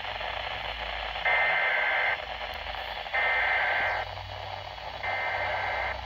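Weather-radio speaker sounding three bursts of warbling two-pitch digital data tones, each just under a second long and about a second apart, over a steady hiss of broadcast static. They have the pattern of the SAME header that encodes a weather alert.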